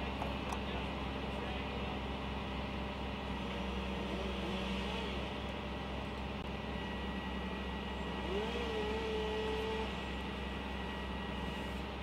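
Engine of a Versalift bucket truck running steadily with a low drone. About eight seconds in, a short whine rises and then holds for about a second and a half.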